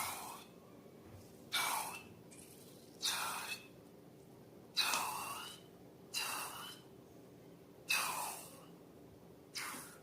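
Slime being squeezed and worked by hand, giving seven short wet squelches about every one and a half seconds, each starting sharply and fading over about half a second.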